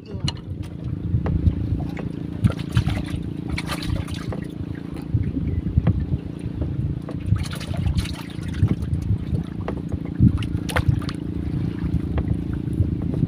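Water lapping and trickling against a small boat's hull, with scattered small splashes and knocks, over a steady low hum.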